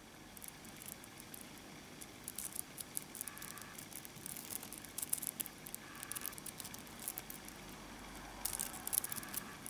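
Tiny magnetic metal balls, about 1 mm across, clicking and snapping against each other as fingers pull them apart and rearrange them: quiet, irregular light ticks, thickest near the end.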